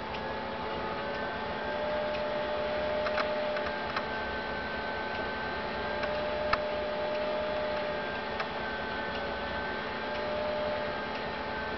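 Steady hiss with a faint, slowly wavering whine and a low hum, broken by a few sharp clicks.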